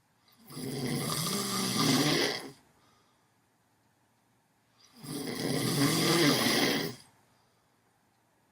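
Loud snoring: two long, rasping snores about two seconds each, roughly four seconds apart, with near quiet between.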